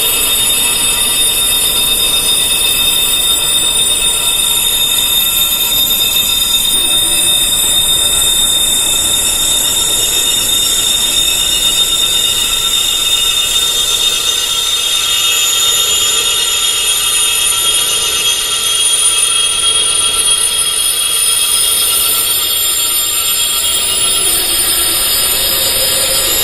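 Wind chimes tuned to tinnitus frequencies, ringing in a dense wash of overlapping, sustained high-pitched tones.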